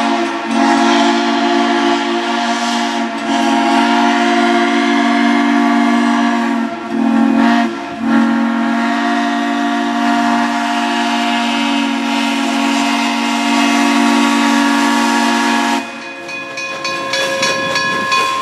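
Steam locomotive's three-chime whistle, a Lehigh Valley chime, blowing the grade-crossing signal: long, long, short, then one long blast. The whistle stops about sixteen seconds in, and steam hiss and the locomotive's running sounds follow.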